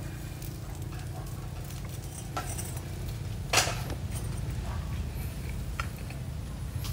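Grilling over a longan-wood fire: a steady low hum with scattered small clicks, and one sharp knock about three and a half seconds in.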